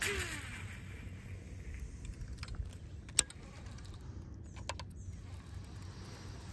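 A cast with a spinning rod and reel: a quick swish as the drop-shot rig goes out at the start, then a sharp click about three seconds in and a few lighter clicks as the reel is worked, over a low steady rumble.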